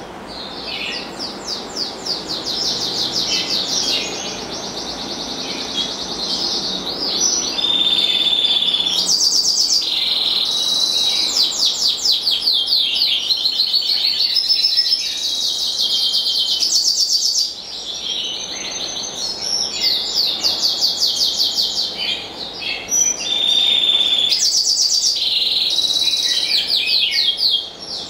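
A black siskin mule, a black siskin × canary hybrid, singing a long, fast song of rapid trills and repeated chirps, broken by brief pauses about 17 seconds in and near the end.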